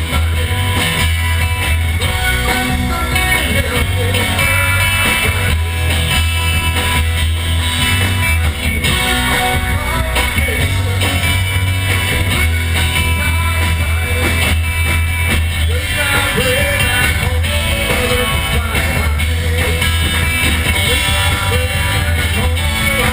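Rock band playing loudly: electric guitar, bass and drum kit, with a singing voice over them.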